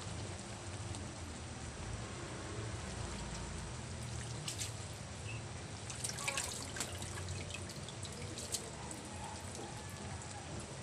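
Broth simmering in a metal pot, a steady bubbling and trickling, with a few light clicks around the middle.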